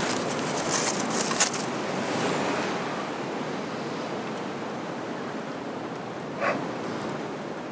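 Steady wind rushing through the woodland trees. Aluminium foil crinkles in the first second or so as the wrap is unwrapped, and a single short sound comes near the end.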